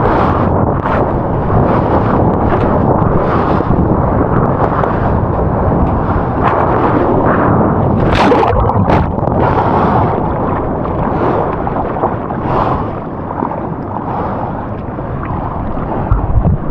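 Heavy shore-break surf churning and crashing close around a camera in the water, with frequent sharp splashes.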